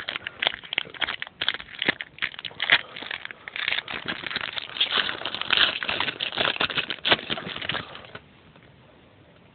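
Crinkling and rustling of a baseball card pack's wrapper and cards being handled and flicked through, a dense run of small crackles that stops about eight seconds in.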